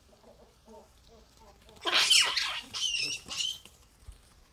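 Baboons calling: faint short calls, then a run of loud, high-pitched screams lasting about two seconds, starting just under two seconds in.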